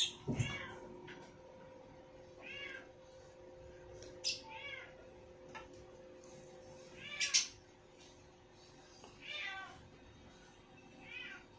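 Domestic cat meowing repeatedly, about six short calls roughly two seconds apart.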